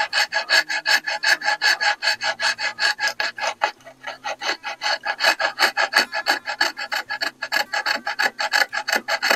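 Fine half-round wood rasp filing the inletting channel of a wooden rifle stock with light pressure, in quick, even back-and-forth strokes at about six a second, taking down high spots so the action can seat.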